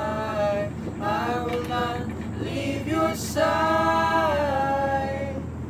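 Voices singing long held notes in a few phrases, the last the longest, falling slightly before it ends near the end. A steady low hum runs underneath, and there is a short hiss just after the middle.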